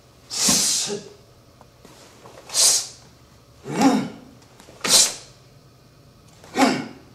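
Karateka's sharp, forceful exhalations, five hissing breaths pushed out in time with his strikes and blocks during the kata, the first the longest.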